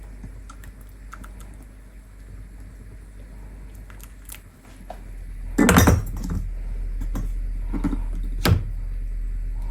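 Kitchenware clinking and knocking while herbal tea is served through a strainer: a few faint clicks, then a loud knock a little past halfway and two smaller clinks near the end.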